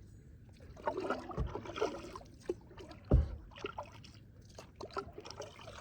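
Kayak paddle strokes dipping and splashing in the river, with water trickling off the blades. Two sharp knocks, the louder one about three seconds in.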